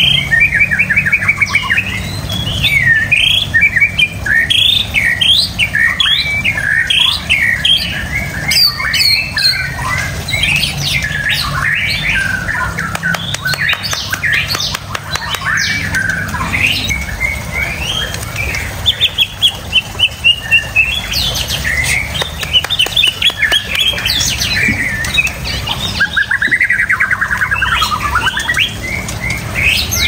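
White-rumped shama (murai batu) singing a continuous, varied song of quick whistled phrases and trills, with a long dense trill near the end.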